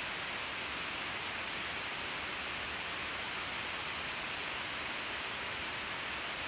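Steady, even hiss with no separate razor strokes standing out.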